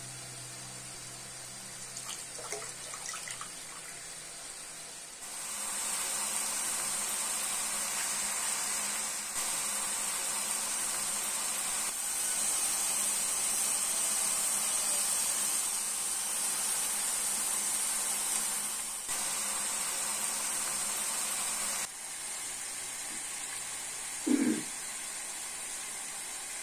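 Hands swishing grain in a bowl of water, then a steady loud hiss as liquid is poured into a hot pot on a gas stove. Near the end the hiss is quieter and there is a single knock.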